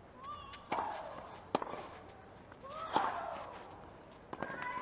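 Tennis rally: sharp racket strikes on the ball about every second or so, several of them with a short pitched grunt from the player as she hits.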